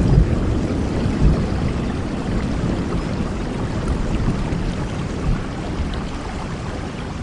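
Heavy rain falling steadily, with the low rumble of thunder slowly dying away.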